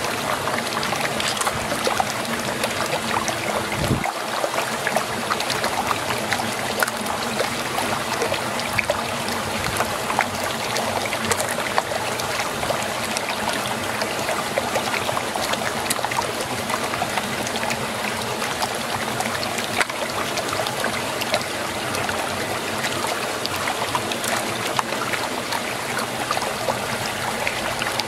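Muddy water swirling in a whirlpool: a steady rushing gurgle with many small splashes and ticks.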